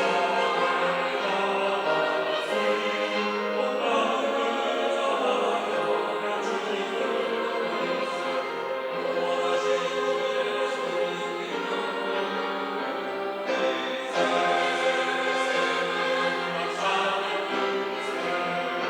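Church choir singing a Sunday anthem in sustained chords, with a short break about three-quarters through before the voices come back in fuller.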